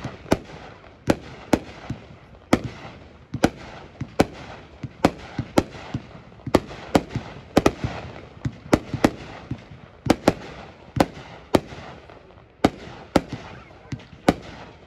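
Neon Fireworks 'Mega Red Peony' 500-gram firework cake firing: a rapid, irregular string of sharp booms, about two a second, from shots launching and shells breaking, with a rumble between the reports.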